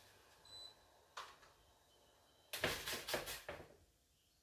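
A single beep from the hob's touch controls as the heat is turned down, then a click about a second in. Near the middle comes a short burst of clattering knocks as cookware is handled on the hob.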